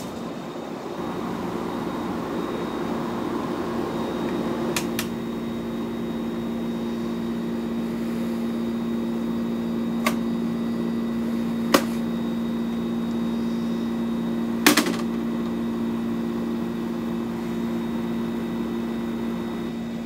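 1960s Westinghouse Mobilaire 7000 BTU window air conditioner running, its compressor hum and fan blowing steady and prominent at the front. Four sharp clicks come from its plastic flip-up front cover being handled.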